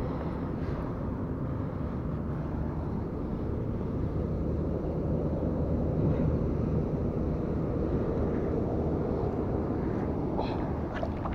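Steady low rumbling of wind buffeting the camera microphone, with a few light clicks of fishing gear being handled near the end.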